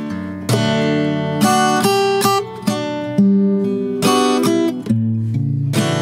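Baton Rouge X11S parlour acoustic guitar, solid spruce top with mahogany back and sides, played fingerstyle: plucked chords and melody notes ringing out, with a new chord or note struck every half second to a second.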